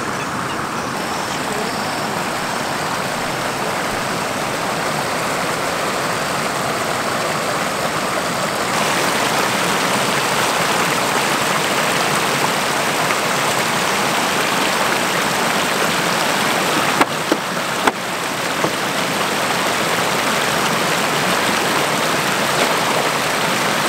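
Muddy floodwater from an overflowing lagoon rushing steadily over its spillway, a loud continuous rushing that grows louder through the first half. Two sharp knocks come a little past halfway.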